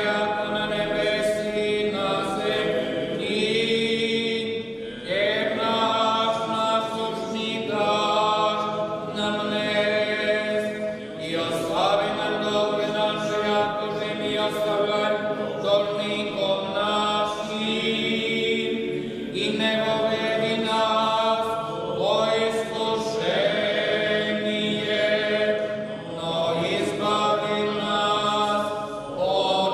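Orthodox liturgical chant sung a cappella by several voices. It comes in long phrases of held notes with short breaks between them.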